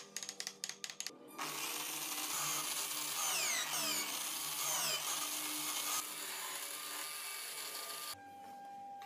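Electric drill driving a homemade wood lathe while a hand-held tool cuts into a spinning wooden wheel blank: a loud scraping hiss that starts about a second and a half in, with a few falling squeals in the middle, and stops near the end.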